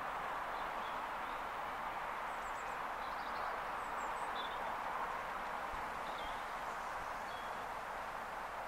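Small birds chirping over a steady outdoor hiss, with the faint running of a 7¼-inch gauge miniature steam locomotive hauling a passenger carriage.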